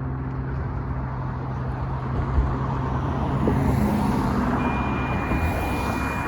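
A steady engine drone with a low rumble, a motor vehicle running near the crossing. A thin, high steady tone comes in about four and a half seconds in.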